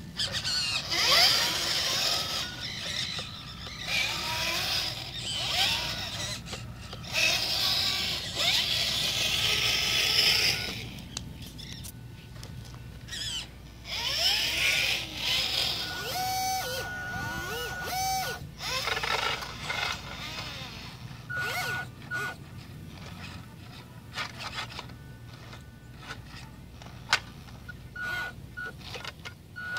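Radio-controlled scale wheel loader and truck running in bursts, a whirring hiss of small electric motors and gearing that starts and stops as they are driven, with a few short, steady high beeps in the second half.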